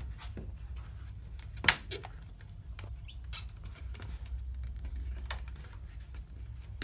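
Putty knife scraping and clicking against a window frame's trim as it is worked under an edge to pry the trim loose: light scratching with a few sharp clicks, the loudest about a second and a half in.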